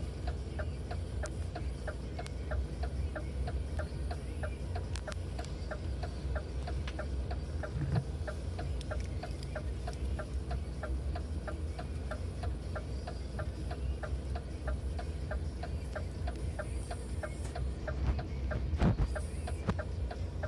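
A vehicle's hazard-warning flasher relay clicking steadily, about three clicks a second, over the low rumble of the idling engine, heard from inside the cab. A thump about a third of the way in and another near the end.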